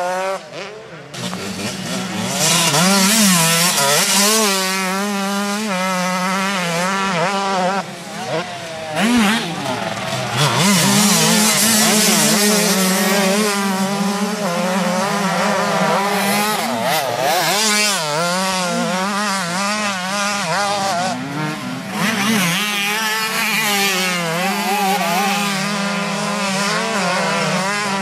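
Several motocross bikes' engines revving hard under load as they climb a steep sand hill, their notes overlapping and constantly rising and falling in pitch.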